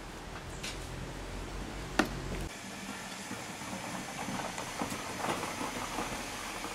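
A steady low hum with one sharp click about two seconds in, then an abrupt change to faint street noise with scattered light knocks from a metal awning frame being handled and lifted into place.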